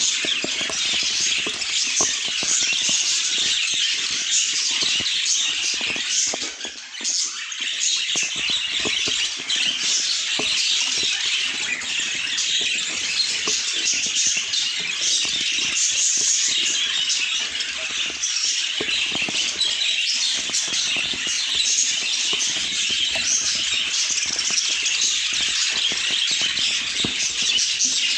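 Many budgerigars chattering and warbling together in a dense, continuous mass of short, high-pitched chirps and squeaks, briefly thinning about seven seconds in.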